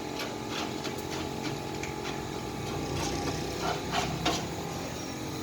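Irregular taps and knocks, as of hand tools striking, over a steady low hum; a few louder knocks come between about three and four and a half seconds in.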